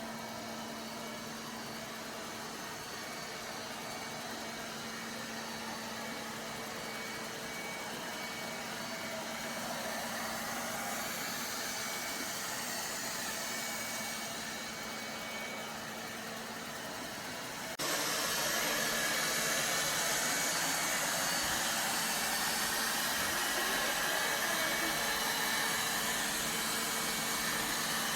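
Robot vacuum running: a steady whirring hum with faint high whines. It jumps suddenly louder and brighter about two-thirds of the way through.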